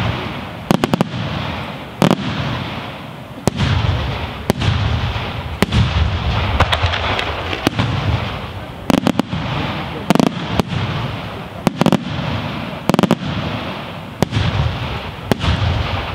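Aerial fireworks shells bursting in quick succession: sharp bangs about once a second, some in quick clusters, over a steady rush of sound between them.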